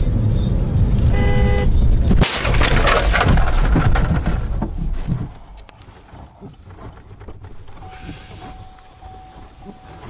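Vehicle running with heavy low rumble, a short car horn honk about a second in, then a sudden loud collision impact about two seconds in, followed by a few seconds of crunching and scattering debris before it goes quieter.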